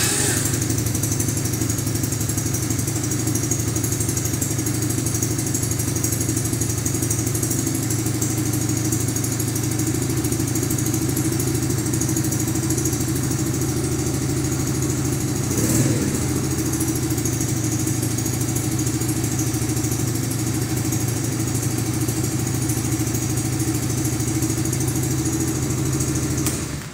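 A Wels 125 children's ATV's single-cylinder four-stroke engine, just started, idles steadily to circulate its fresh oil after an oil change. There is one brief rise in revs a little past halfway, and the engine is switched off and cuts out right at the end.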